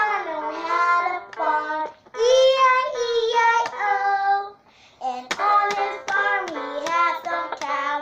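A young girl singing in short phrases, with a brief pause about halfway through. Sharp taps sound along with her singing in the second half.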